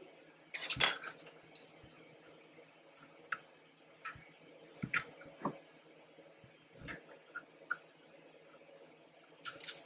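3D-printed plastic blaster parts being handled and fitted together: scattered clicks, taps and knocks of hard plastic, the loudest cluster about a second in.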